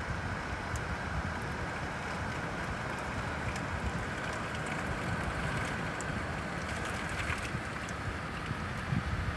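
Steady rain hiss, with scattered ticks of drops and a low, gusting rumble of wind on the microphone that grows stronger near the end.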